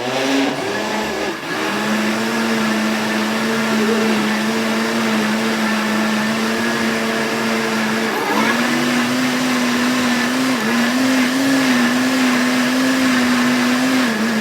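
Countertop blender running loud and steady, mixing cornmeal cake batter. The motor's pitch steps up a little about eight seconds in and wavers near the end.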